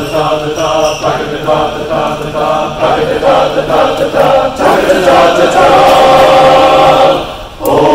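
Men's barbershop chorus singing a cappella: a run of short, detached chords, then a long held chord that breaks off briefly near the end before the singing picks up again.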